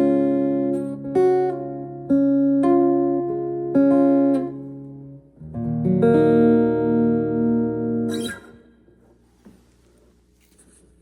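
Takamine acoustic-electric guitar strummed: about five chords, each left to ring, the last one held for a couple of seconds and then damped about eight seconds in, leaving only faint small sounds.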